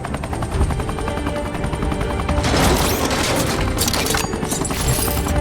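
Cartoon background music over a fast, even rattling, with a burst of rushing noise about two and a half seconds in and another near the end.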